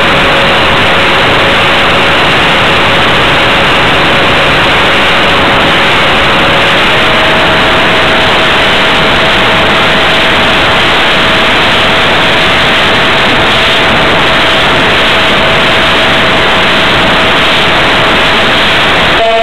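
Twin-motor electric RC plane in flight, heard from a camera on its nose: a loud, steady rush of wind and propeller noise with the thin whine of its Emax CF2812 brushless motors. The whine steps up a little in pitch about seven seconds in.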